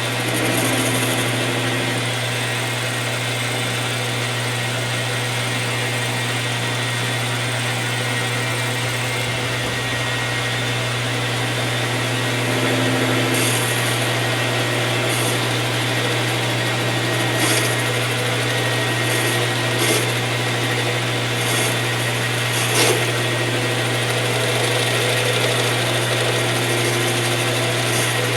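King Industrial 10x22 metal lathe running steadily at low speed, with a few short sharp ticks from about halfway through, as a cutoff tool parts off the work.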